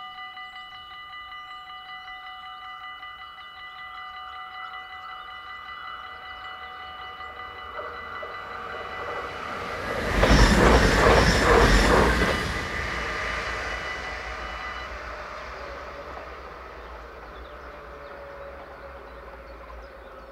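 Dutch level crossing bell ringing rapidly and steadily while a train passes quickly, a loud rush and rattle lasting about two seconds halfway through. The bell stops a few seconds after the train has gone.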